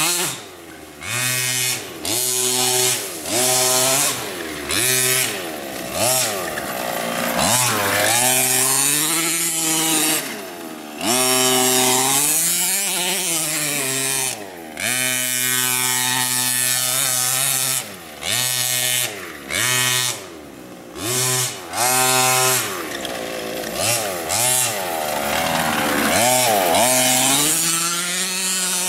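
Small two-stroke engine of a gas-powered MCD radio-controlled car revving up and down over and over, dropping back to idle between bursts of throttle.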